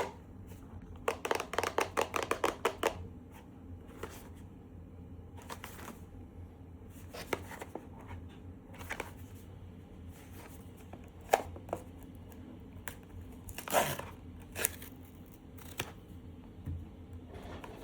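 Blind box packaging being opened and handled by hand: a rapid run of short cutting or tearing strokes about a second in, then scattered clicks and rustles, with a longer rustling tear about two-thirds of the way through.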